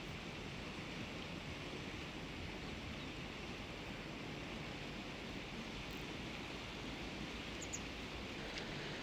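Steady, even outdoor hiss of a meadow ambience with no distinct events, and a brief faint high chirp near the end.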